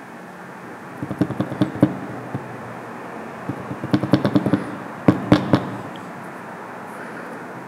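Ambient sound picked up by a camera's built-in microphone: a steady background hiss broken by three clusters of sharp crackling pops, about a second in, around four seconds in and again just after five seconds.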